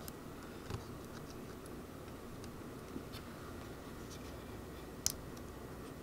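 Faint, sparse clicks of a small precision screwdriver working the Torx screw on a Surface Pro 7+'s SSD cover, the sharpest click about five seconds in.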